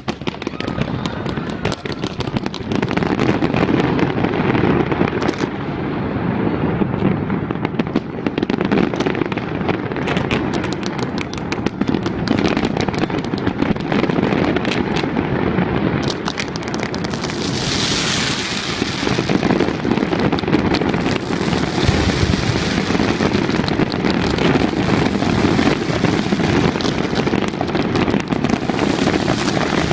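Fireworks display: a dense, continuous barrage of shells bursting and crackling in rapid succession, with a brighter burst of crackle a little past halfway.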